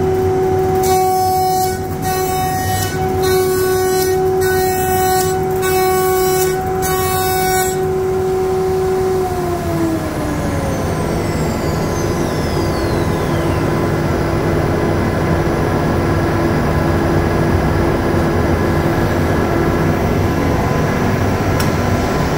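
CNC router spindle whining at a steady high pitch while it machines tenons on wooden window rails, with five short bursts of cutting noise about a second apart. About nine seconds in the whine slides down in pitch as the spindle winds down, leaving a steady rushing machine noise.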